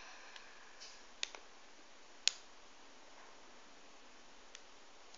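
Low room hiss with a few faint, sharp clicks, the loudest about two seconds in.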